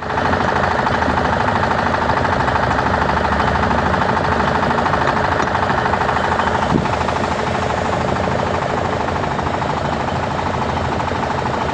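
Welding repair on an excavator bucket tooth: a loud, steady, dense crackle with machine noise underneath, and a single knock about seven seconds in.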